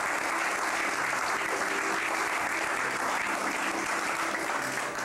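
Seated guests applauding steadily, greeting a newly married couple just presented as husband and wife.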